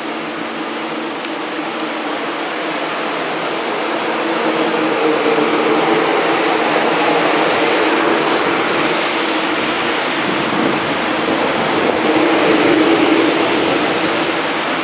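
CPTM series 2100 electric multiple unit pulling out and passing close by: a steady motor hum over wheel and running noise, growing louder over the first few seconds and staying loud as the cars go by.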